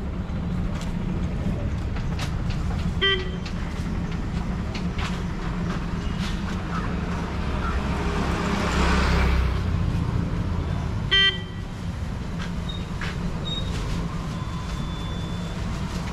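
Roadside traffic, with a steady low engine rumble. A vehicle horn gives two short toots, one about three seconds in and a louder one about eleven seconds in. A passing vehicle swells up and fades in the middle.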